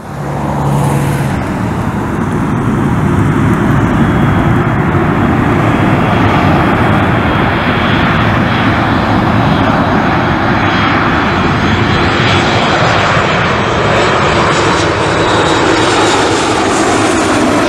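Boeing 737 MAX 8's CFM LEAP-1B turbofans at approach power as the airliner comes in on final approach and passes close by: a loud, steady jet rumble and rush, with a thin high whine joining it about two-thirds of the way through as the aircraft nears.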